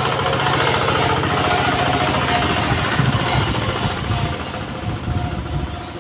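An engine running with a rapid, steady low pulsing, growing fainter in the last couple of seconds.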